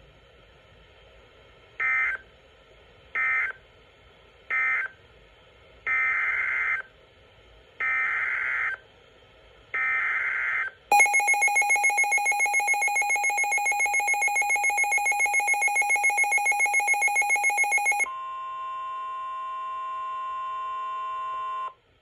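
NOAA Weather Radio emergency alert tones. First come three short and then three longer bursts of buzzing SAME digital data tones. Then a loud pulsing electronic alert tone sounds for about seven seconds. It gives way to the steady 1050 Hz warning alarm tone, which cuts off just before the end.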